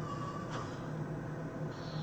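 A person snoring: the tail of a high, rising snore held briefly and cut off about half a second in, then a pause between snores. A steady low hum runs underneath.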